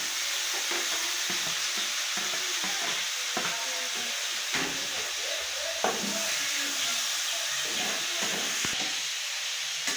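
Onions and freshly added tomatoes frying in hot oil in a pot, a steady sizzle, with a spoon knocking against the pot a few times while stirring.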